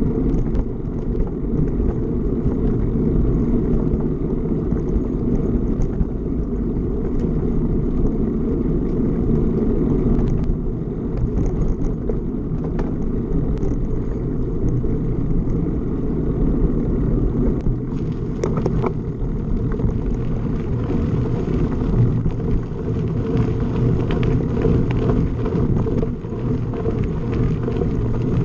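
Steady low rumble of wind and motion noise on a camera moving along a path, with scattered faint ticks and a brief brighter rattle about eighteen seconds in.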